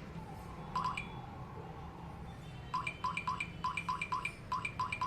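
Touch keypad of a smart door lock beeping as a passcode is keyed in: one beep about a second in, then a quick run of about nine identical beeps, roughly three a second, from near the three-second mark.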